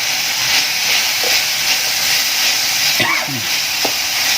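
Food sizzling steadily in a hot pan while being stirred, as papaya flowers go into the nearly reduced sauce. A short falling tone sounds about three seconds in.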